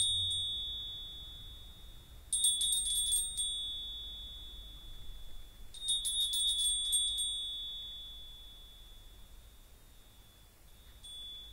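A small high-pitched metal ritual bell or chime shaken in short jingling bursts, about two seconds in and again about six seconds in, each leaving a bright ringing tone that slowly fades; a faint brief ring comes near the end.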